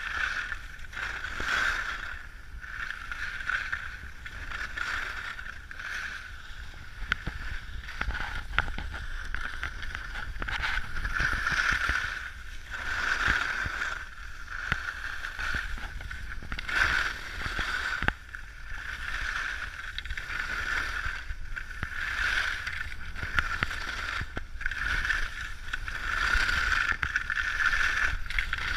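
Skis or a board carving across packed, groomed snow on a fast run down a slope: a continuous scraping hiss that swells with each turn, about once a second, over a low rumble of wind on the microphone.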